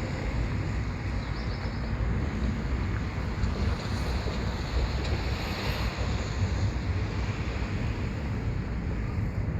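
Wind buffeting the microphone: a steady rough rumble with no distinct tones.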